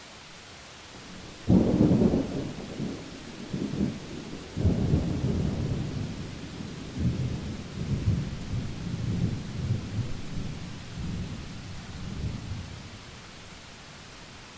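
A sudden thunderclap about a second and a half in, then thunder rumbling in rolling waves that die away over the next ten seconds, over a steady hiss of rain.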